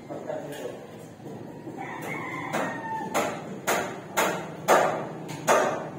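A rooster crows in the background about two seconds in, then a hammer strikes about twice a second, six blows that grow louder toward the end.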